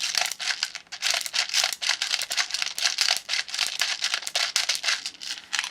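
Plastic airsoft BBs rattling in a BB loader as it is filled: a dense, uneven run of small rapid clicks.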